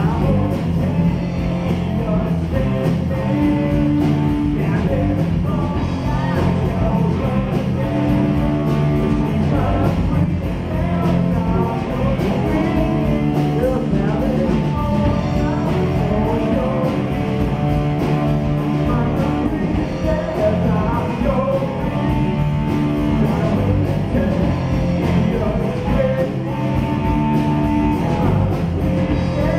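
A small rock band playing live through a PA: electric guitars and drums with a singer, as one steady, loud song.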